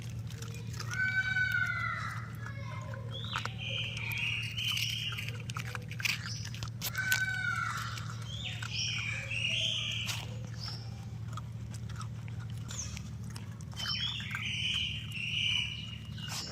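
Puppies eating, with short soft clicks of chewing and lapping, under high chirping calls. The calls come in a similar phrase three times, each an arching call followed by a higher squeaky cluster.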